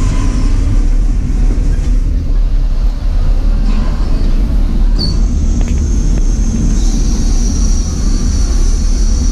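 Denver & Rio Grande Western No. 340, a C-19 class 2-8-0 steam locomotive, standing with a steady low rumble. About five seconds in, a steady high-pitched hiss joins it.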